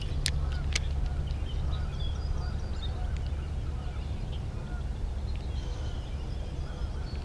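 Steady low outdoor rumble, like wind on the microphone, with faint scattered bird calls and two sharp clicks near the start.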